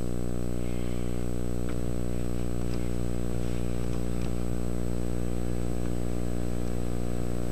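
Engine lathe running with a steady hum from its spindle drive while a reamer held in the tailstock is fed into a drilled hole, with a few faint ticks.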